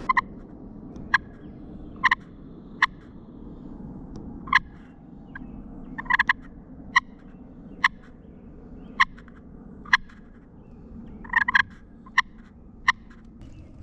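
Wild turkey clucking: short, sharp single notes, sometimes doubled, coming irregularly about once a second.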